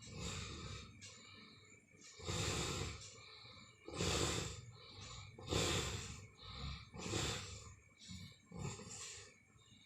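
Heavy snoring in a steady rhythm, a rough breath swelling and fading about every second and a half.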